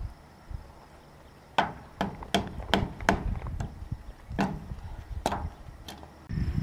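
Hammer blows on wooden fence framing: about ten sharp strikes in irregular runs of two or three a second, starting a little over a second in.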